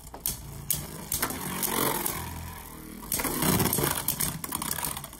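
Two Beyblade Burst tops, World Spriggan and Brave Valkyrie, spinning in a plastic stadium: a steady whirring scrape, with sharp clacks as they hit each other. The scraping grows louder twice, about a second in and again about three seconds in.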